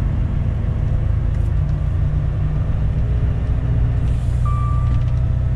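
Lorry's diesel engine running with a steady low rumble, heard from inside the cab as the truck rolls slowly along a dirt track. Near the end a single-pitched electronic warning beep starts, repeating about once a second.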